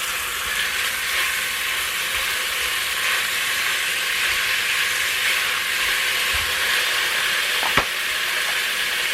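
Ground beef sizzling steadily as it browns in a Presto electric kettle. A single sharp click sounds near the end.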